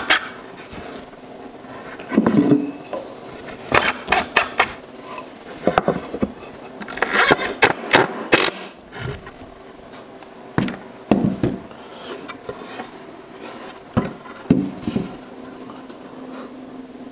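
Makita cordless impact driver driving screws into wooden boards, its rapid hammering rattle coming in several short bursts that start and stop.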